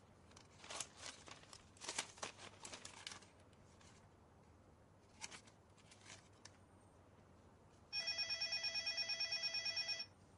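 Faint paper rustling and scratching, then a telephone rings once for about two seconds near the end with a fast, even warble.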